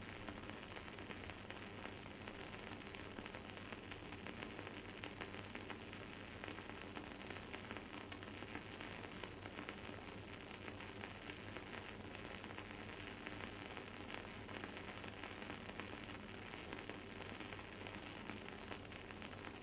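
Wood-wick candle burning with a continuous faint crackle, many tiny rapid pops and sizzles.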